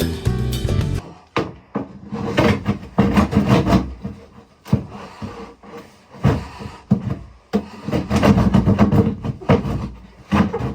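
Hand work on a boat's fiberglass-and-wood cabin floor: irregular knocks and rough scraping, with background music ending about a second in.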